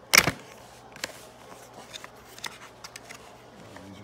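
Cardboard packaging being handled: a sharp, loud rustle as a box flap is pulled open right at the start, then light clicks and rustles as fingers work inside the box.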